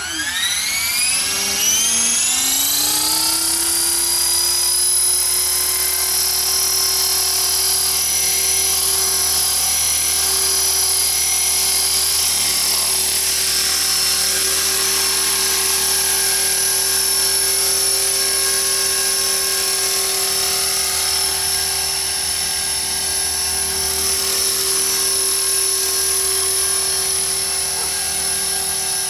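Small radio-controlled model helicopter spooling up: its motor and rotor whine rises steeply in pitch over the first few seconds, then holds a steady high whine as it lifts off and hovers.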